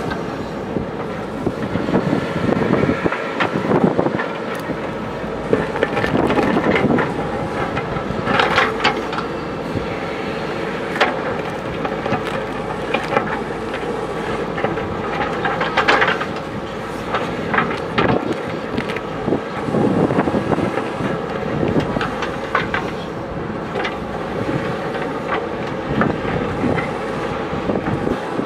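JCB backhoe loader's diesel engine running steadily under work, with irregular sharp knocks and clanks a few seconds apart.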